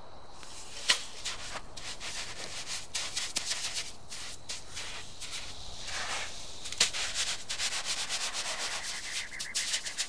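Damp coarse salt crunching and scraping as hands scoop it and press it flat onto a metal tray, in many short grainy strokes, with a sharp tap about a second in and another near seven seconds.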